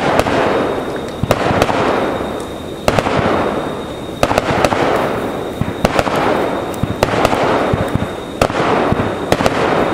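Fireworks going off in a steady run, a sharp bang about every second and a half. Each bang is followed by a fading hiss scattered with small crackles.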